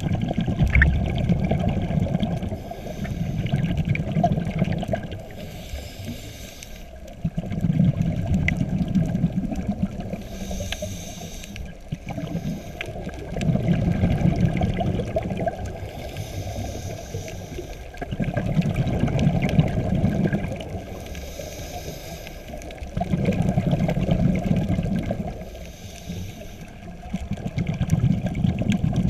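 Scuba diver breathing through a regulator underwater: a short hiss on each inhale, about every five seconds, then a longer low bubbling of exhaled air.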